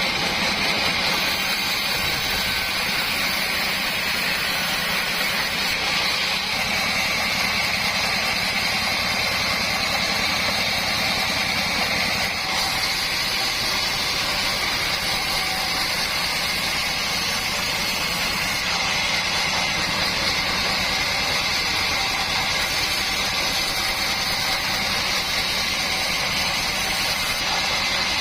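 An engine-driven board sawmill running steadily, a constant machine noise with a steady high whine.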